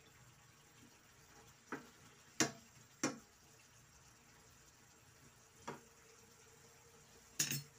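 Slotted spatula knocking and scraping against a frying pan as a saucy sardine-and-broccoli dish is stirred: about six separate clacks, with a close pair near the end, over a faint steady background.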